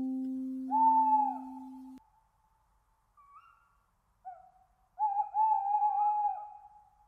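A plucked guitar note rings on and fades, cut off about two seconds in. Over and after it an owl hoots in short calls that bend in pitch: one near the start, two faint ones in the middle and a run of calls near the end.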